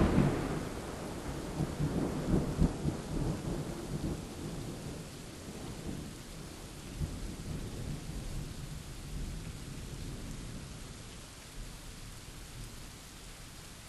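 Rain falling steadily while thunder rumbles and rolls off, loudest in the first few seconds and fading away, leaving the rain alone.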